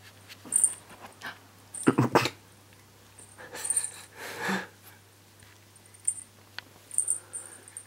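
A kitten scrambling about a cat tower: irregular thumps and scratchy scrabbles, the loudest cluster about two seconds in.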